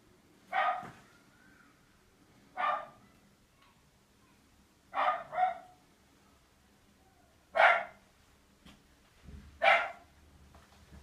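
A dog barking: single barks about every two seconds, six in all, two of them in quick succession around the middle.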